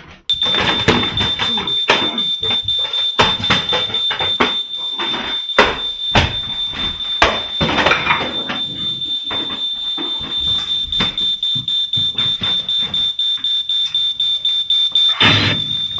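Smoke alarm sounding one continuous high-pitched tone, switching on suddenly just after the start. Under it runs a stream of knocks, clatter and bangs, the heaviest about fifteen seconds in.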